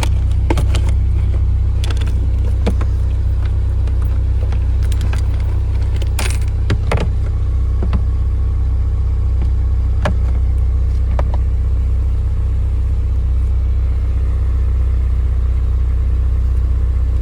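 2001 Toyota Celica GT's 1.8-litre four-cylinder engine idling steadily just after start-up, on a fresh set of iridium spark plugs, with a few light clicks over the top.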